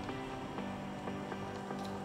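Background music: soft sustained notes with gently plucked notes over them.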